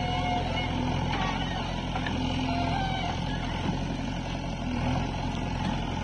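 Diesel engines of a JCB 3DX backhoe loader and a Mahindra tractor running steadily, a continuous low engine hum.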